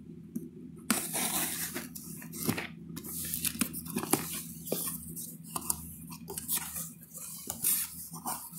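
A mail-order shipping package being torn open by hand: irregular tearing and scraping of the packaging with crinkling and clicks, the first loud tear about a second in.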